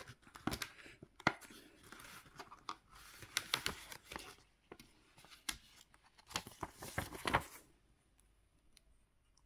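Paper and plastic handling: a cash-envelope budget binder is leafed through and a paper envelope with its tracking card is pulled out, giving crisp rustles and sharp clicks that stop near the end.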